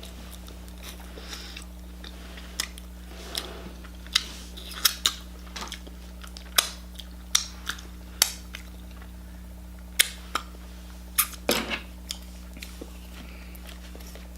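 Close-up eating sounds of a shrimp sushi roll being chewed: irregular sharp, wet mouth smacks and clicks, a dozen or more of them, over a steady low hum.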